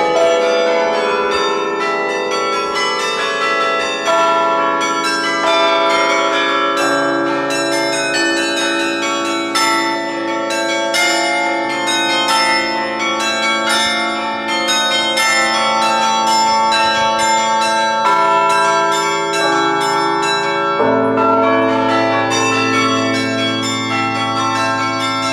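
The Sather Tower carillon being played: tuned bronze bells struck one after another in a melody over lower, held bell notes, every tone ringing on and overlapping the next. The low notes change a few times, around a third of the way in and again near the end.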